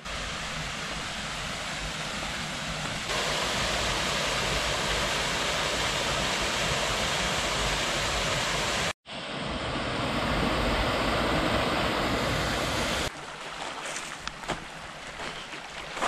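Small waterfall pouring over a rock ledge into a pool: a steady rush of water that cuts out abruptly for an instant about nine seconds in and comes straight back. For the last few seconds a quieter, shallow creek runs over gravel, with a few light clicks.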